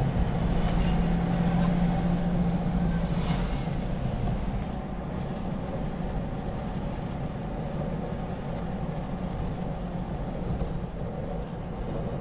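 Engine and road noise of a moving vehicle. There is a steady engine drone for the first few seconds, then the level drops about four and a half seconds in to a quieter, even rumble.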